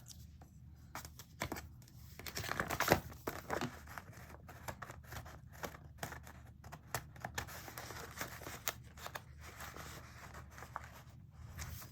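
Small paper number stickers being peeled off their backing sheet and pressed onto planner pages: scattered crinkles, light tearing and clicks, busiest about two to four seconds in.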